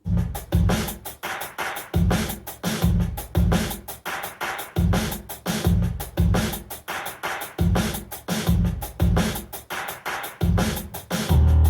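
Electronic music with a drum-machine beat, played through an Obage DT-31 dual tower speaker: heavy bass kicks about twice a second under fast, crisp percussion, starting abruptly after a brief gap.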